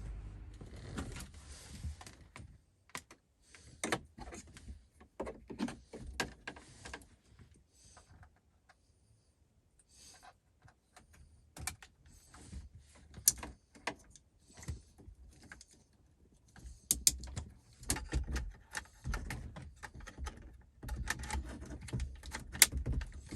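Hands and tools working on a car's interior trim and mounting screws to take out an amplifier: irregular clicks, knocks and rattles of plastic and metal, with a quiet stretch in the middle.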